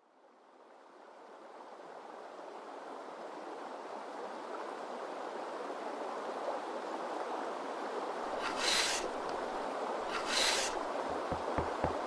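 Rushing river water fades in and then runs steadily. Two short hissing bursts come late on. Near the end a knife starts chopping quickly on a wooden cutting board.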